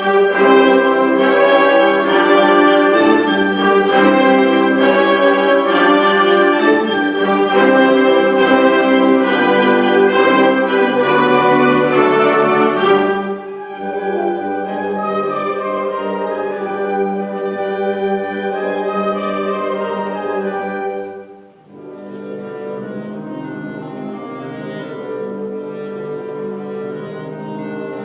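Orchestral music with brass and strings. It is fuller and louder for the first half, turns softer after about 13 seconds, and pauses briefly near 21 seconds before going on.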